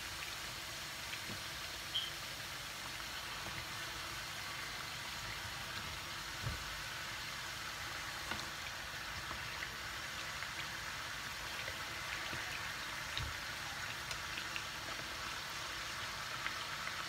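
Fritters deep-frying in a pan of hot oil, a steady bubbling sizzle, with a few faint knocks as a slotted skimmer turns them.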